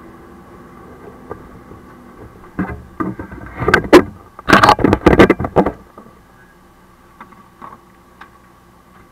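Fire truck engine running, heard from inside the cab as a steady drone, broken by a cluster of loud, sudden clattering knocks from about two and a half to six seconds in.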